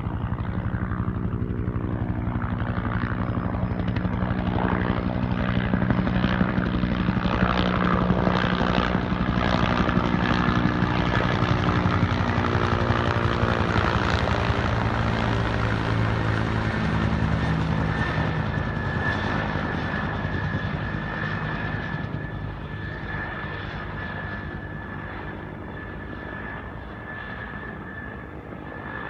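Bell 212 helicopter flying past: the rapid beat of its two-bladed main rotor with engine noise, growing louder to a peak around the middle, then dropping in pitch and fading as it moves away. A steady high whine is heard in the second half.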